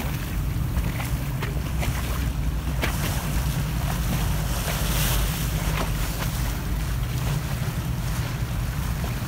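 A motorboat under way: the engine rumbles steadily while water rushes and slaps against the hull in short splashes, and wind buffets the microphone.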